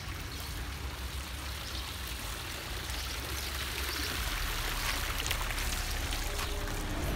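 Garden fountain splashing into its tiled basin, a steady rush of water that grows louder about halfway through.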